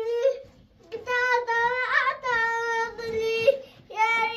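A child singing a slow melody in long held notes, with short breaks for breath about half a second in and again near the end.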